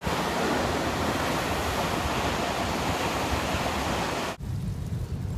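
Hamburg U-Bahn train passing directly below: a loud, steady rushing rumble that cuts off abruptly about four seconds in, leaving a quieter low rumble.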